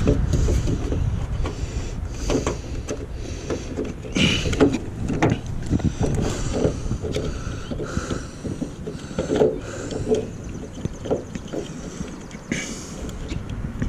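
Irregular clicks, knocks and rattles of hands working replacement handle parts into a pickup truck's door.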